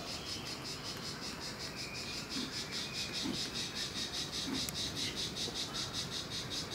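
Crickets chirping in a steady, even pulse of about five chirps a second.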